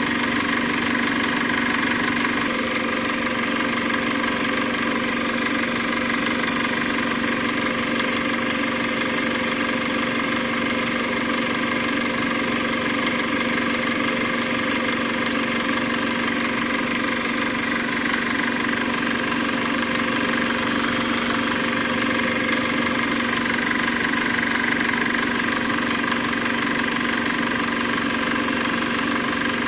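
A steady mechanical hum with fixed pitches and an even level that never changes.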